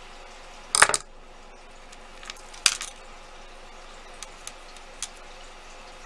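Small metal clinks and clatter from jewelry pliers and metal bracelet findings being handled and set down: a sharp clatter about a second in, another near the three-second mark, then a few light ticks.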